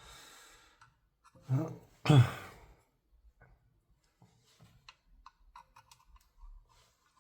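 A man's short vocal sounds, the second a falling sigh, followed by faint scattered clicks and taps of small airsoft rifle parts being handled.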